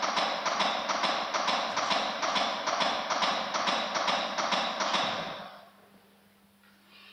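CPR chest compressions on a training manikin: an even run of clicks and thumps at about two a second, which stops suddenly about five seconds in as the compressions end.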